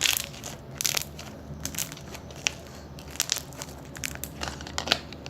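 Slime being squeezed and kneaded by hand, giving irregular crackling pops and clicks, the loudest right at the start.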